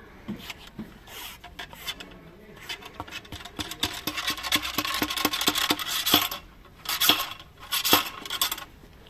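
Metallic clinking, rattling and scraping from a muzzleloader being loaded by hand. A quick run of clicks about a third of the way in is followed by two louder scrapes near the end.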